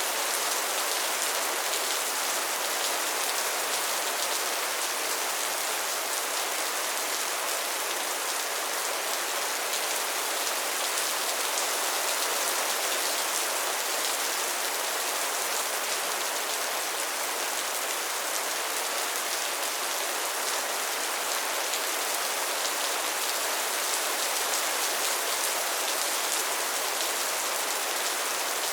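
Steady rainfall: an even hiss of many drops hitting a surface, with no thunder or other distinct events.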